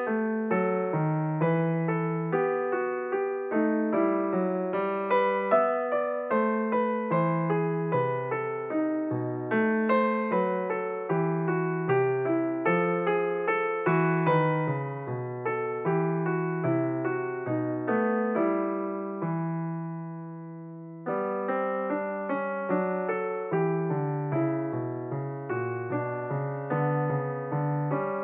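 Solo piano background music playing a slow tune of separate notes and chords. About twenty seconds in, the music thins to one fading chord, then the tune starts up again.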